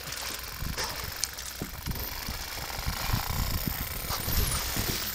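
Bottlenose dolphins heard through a hydrophone: faint high whistles gliding in pitch, one falling whistle about four and a half seconds in, with a few clicks, over a steady low crackle of underwater noise.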